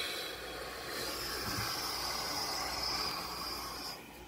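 A person's long, hissing breath out, which stops suddenly about four seconds in.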